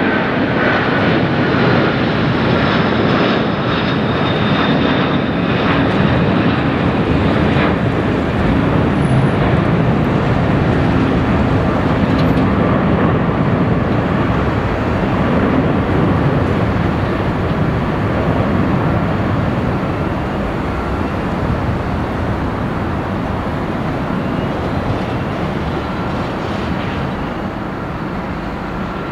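Boeing 747-400's four Rolls-Royce RB211 turbofans at takeoff climb power: a loud, steady jet roar with a faint whine falling slightly in pitch over the first several seconds, the roar slowly fading as the aircraft climbs away.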